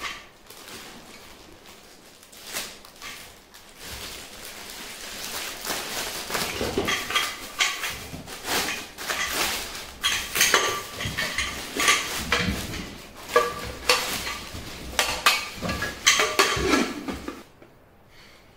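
Pigeon 3-litre aluminium pressure cooker being handled: its lid and pot clank and clink in a run of short, irregular metallic knocks, some ringing briefly. The knocks stop about a second before the end.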